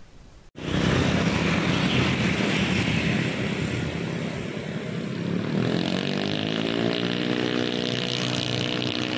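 Motorcycle engine running close by, its pitch climbing about halfway through and then holding steady.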